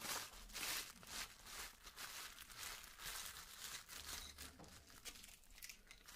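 Plastic bubble wrap crinkling and rustling in quick, irregular crackles as hands unroll it from around a bundle of pencils, busiest in the first second or so.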